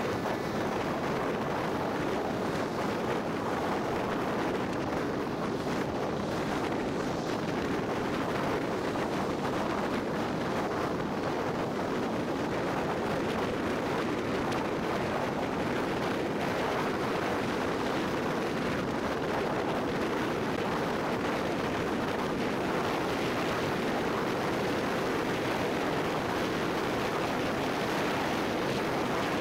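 Steady road and wind noise from a car driving on a highway: a continuous, even rush with no distinct engine note.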